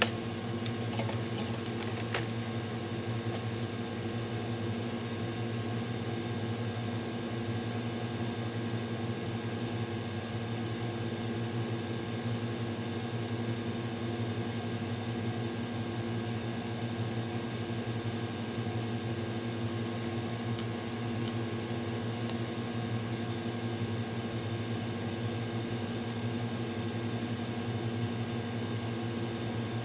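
Steady electrical hum from running bench equipment, with a faint high whine over it. A sharp click right at the start and a softer one about two seconds in.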